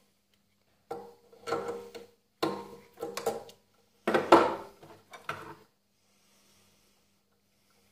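Metal clinking and rattling in four short bouts at the chuck of a stopped mini metal lathe as the workpiece is worked loose by hand.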